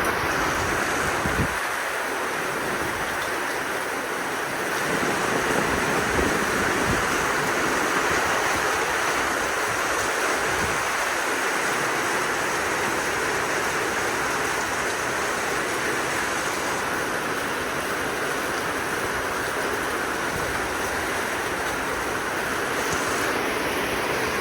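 Strong squall-line wind blowing, a steady rushing noise with scattered gusts buffeting the microphone.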